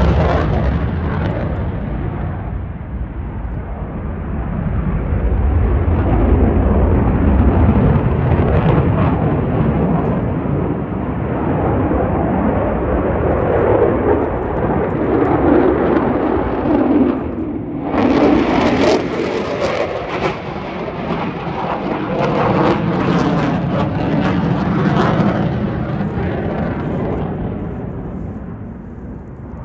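F-35C Lightning II's single jet engine during an air-show pass: loud, steady jet noise whose sharp edge fades in the first couple of seconds. About eighteen seconds in it cuts back in suddenly with a crackle, then it fades near the end.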